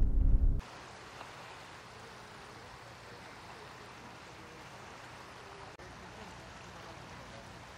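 Steady seaside ambience of gentle water lapping along the shore, an even hiss with faint distant voices in it. A loud, low engine-like hum is cut off abruptly about half a second in.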